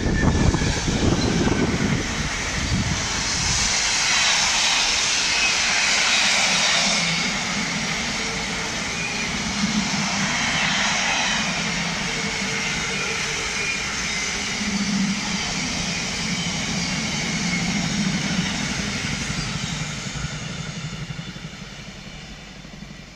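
Freightliner Class 66 diesel locomotive, an EMD two-stroke V12, hauling a container freight train past: the engine running under load and a long rake of container wagons rumbling and clattering over the rails. The sound holds steady for most of the time and fades away near the end as the train leaves.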